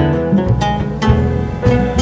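Background music: plucked acoustic guitar with a bass line and a steady beat.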